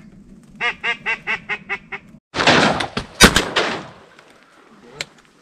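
A quick run of about eight duck quacks. About two seconds later comes a loud noisy rush with one sharp bang near its middle, a shotgun shot, and a fainter crack near the end.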